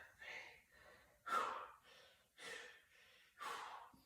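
A man breathing heavily, four breaths about a second apart.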